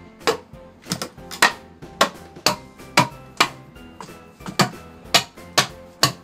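Mallet striking the back of a nata (Japanese hatchet) again and again, about two sharp knocks a second, driving the blade down a green bamboo culm to split it from the top end.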